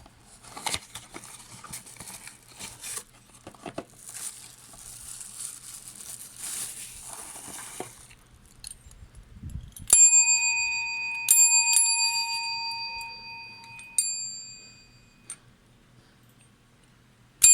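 Rustling handling noise for the first ten seconds or so. Then a silver polished desk service bell is struck with a bright ding that rings on and slowly dies away. It is tapped three more times over the next few seconds and once more at the very end.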